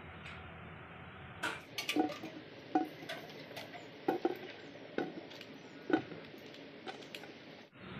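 Onions and tomatoes being set down one by one on a stainless steel plate: a run of light knocks and clatters, irregularly spaced, starting a second or so in, over a steady hiss.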